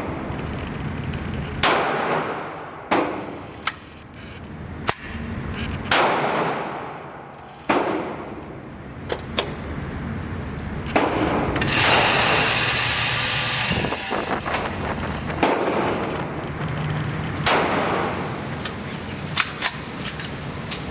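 Gunshots at a shooting range: single shots at irregular intervals, each followed by a long echoing decay, with a denser run of noise about halfway through.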